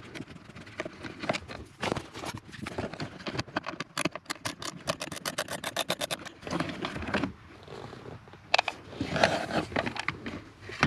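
Screwdriver work on the plastic heater case. A rapid, even run of clicks lasts for a couple of seconds about four seconds in, then plastic scrapes and rustles as the HVAC damper motor is worked loose and pulled free.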